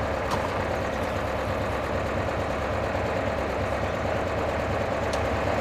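A 1982 VW T25's 2-litre air-cooled flat-four engine idling steadily.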